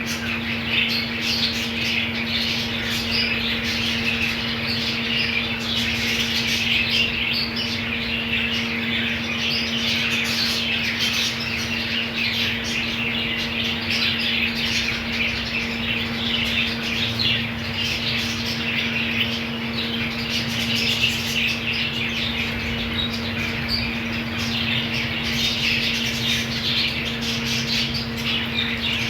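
A colony of budgerigars chattering and squawking nonstop, a dense mass of overlapping chirps. A steady low hum runs underneath.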